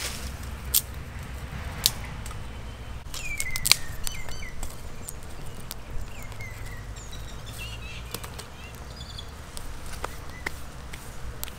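Small birds chirping, with short calls that fall in pitch, over a low steady outdoor rumble. A few sharp snaps and clicks stand out, the loudest in the first four seconds.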